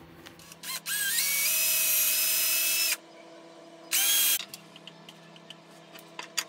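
Cordless drill run into a small oak handle block: a whine that climbs in pitch as it speeds up and runs for about two seconds, then a second short burst about four seconds in.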